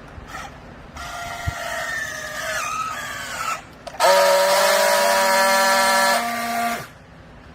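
Hydraulic baler whining as it works: a wavering, gliding whine for a couple of seconds, then after a brief break a louder, steady whine with several tones held for nearly three seconds that cuts off suddenly.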